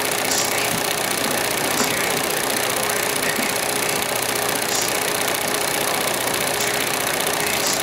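Steady, even running noise of a small motor-driven machine, with a faint constant hum and no change in pace.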